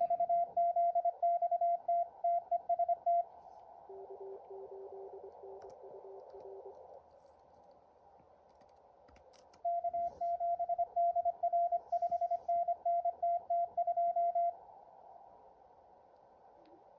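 Morse Runner contest simulator playing Morse code at about 25 words per minute. A loud keyed tone sends for about three seconds, then comes narrow-band receiver hiss with a fainter, lower-pitched station keying in Morse. The loud tone sends again from about ten seconds in, and the hiss returns near the end.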